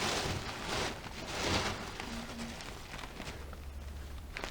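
A knife blade scraping shattered back glass off an iPhone 8's metal housing, in two rough scraping strokes, then a few small clicks and ticks.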